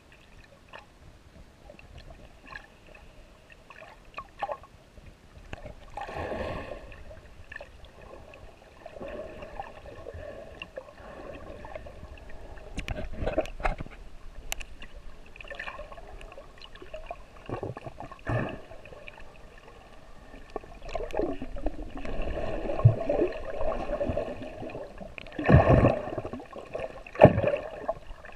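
Water sloshing and gurgling against a GoPro held in the water while snorkeling, muffled and hollow, with several louder surges and a few sharp knocks, the loudest near the end.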